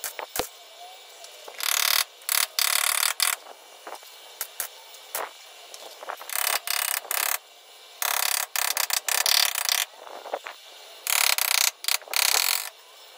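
Welder tacking a steel patch panel into a rusted sill (rocker panel): short bursts of welding arc, one to two seconds each, in four groups with pauses between, and a few small clicks in the gaps.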